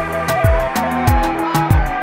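Background music with a steady electronic beat: deep bass drum hits that drop in pitch, sharp percussion and a held melody over them.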